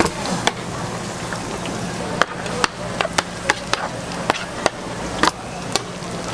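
A broad knife knocking and scraping on a plastic cutting board as it cuts and rolls sheets of fish cake paste: about a dozen sharp, irregular taps, bunched between about two and five seconds in. Underneath runs the steady sizzle of fish cakes deep-frying in oil.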